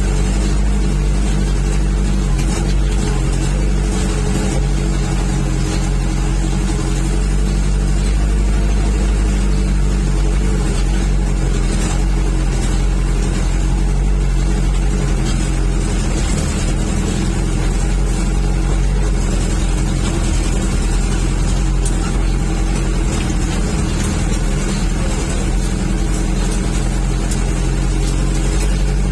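Diesel engine of a Toyota FJ40 running steadily at an even engine speed.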